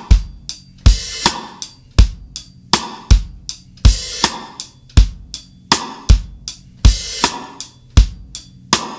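Acoustic drum kit played with sticks: a steady rock beat of bass drum and snare under ringing cymbals.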